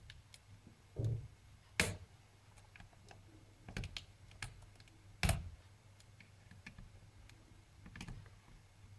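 Plastic clicks and taps of a netbook keyboard being pried out of its retaining latches, with two sharp snaps, about two and five seconds in, as it comes loose. The keyboard is stuck down by spilled coffee.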